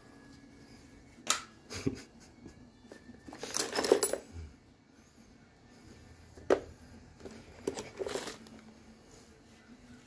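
Hand tools clinking and rattling in an open tool bag as gloved hands put a utility knife back and rummage among screwdrivers and other tools. There are a few sharp clicks, and two longer clattering stretches about three and eight seconds in.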